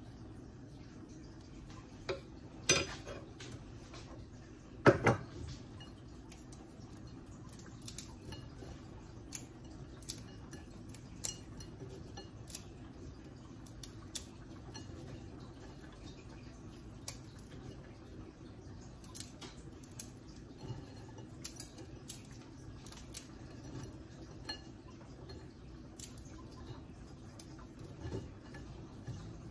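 A metal spoon knocks twice against a stainless steel saucepan, the second knock, about five seconds in, the loudest. After that come scattered light clicks and ticks as dry fideo noodles are broken up by hand in a ceramic bowl.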